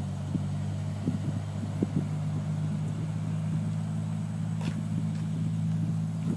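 A steady low engine hum, with a few faint knocks over it.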